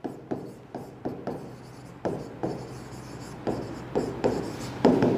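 A pen tapping and scratching on the glass of an interactive display as a word is handwritten: a string of short separate strokes, about two to three a second.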